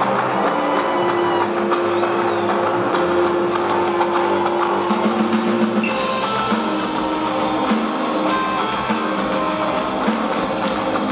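Live rock band playing, with drum kit and electric guitars, heard from the stands of a large arena. The low end fills out about six seconds in.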